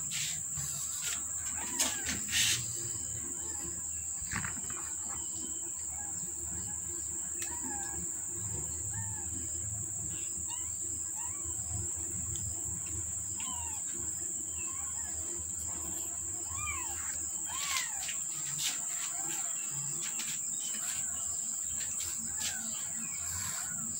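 Steady high-pitched insect drone from crickets or cicadas, with short rising-and-falling chirps scattered over it and a couple of sharp clicks about two seconds in.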